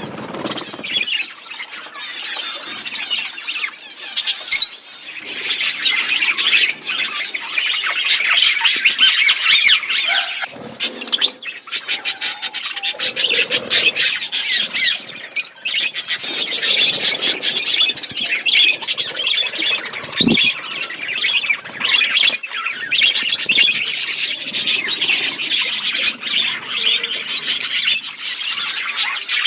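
A flock of budgerigars chirping, many birds calling over one another in a constant, overlapping chatter.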